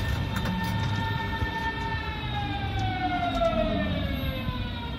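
Berlin S-Bahn electric train's traction motors whining at a steady pitch, then falling steadily in pitch from about two seconds in as the train slows into a station, over the low rumble of the carriage running on the track, heard from inside the car.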